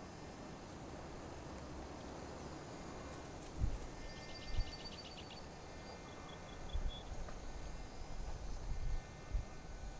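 Steady outdoor background hiss with a few low bumps. About four seconds in comes a short, rapid, high chirping trill of about ten notes, and then a briefer, slightly lower run of about five notes. The snake swallowing the frog makes no audible sound.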